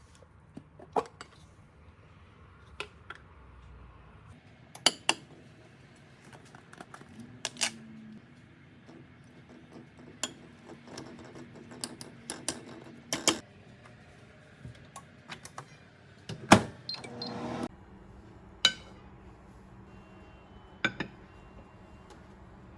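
Kitchen clatter: scattered clinks and knocks of dishes and utensils being handled, with a faint steady hum for a few seconds midway and a brief rustling stretch near the end.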